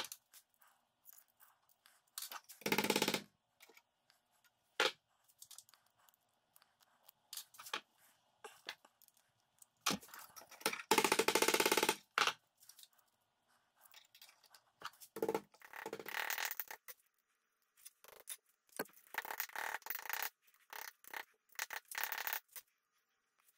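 Intermittent scrapes and clinks of a thin metal strip worked by hand in a steel bench vise, as it is bent tight around an oval pommel core before welding. Near the end come short hammer taps as it is shaped over an anvil horn.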